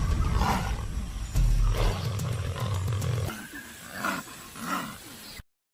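Several harsh animal calls, one after another, over a low rumble. The sound cuts off abruptly about five and a half seconds in.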